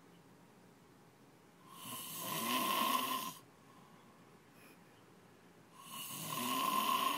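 A man snoring loudly: two long snores about four seconds apart, each growing louder and then breaking off, with quiet in between.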